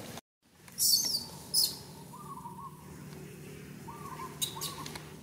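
High-pitched animal chirps: two loud, short ones about a second in, then several brief rising-and-falling whistled calls over a steady outdoor background. The sound cuts out briefly just after the start.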